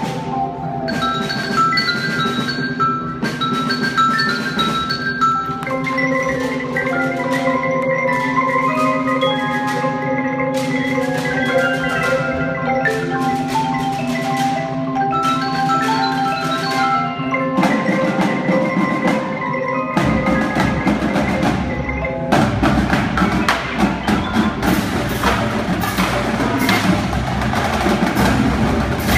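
Indoor drumline's front ensemble playing a melody on marimbas and mallet keyboards over a held low chord. About 20 seconds in a low bass enters, and a couple of seconds later the battery drums and cymbals join with dense, loud drumming.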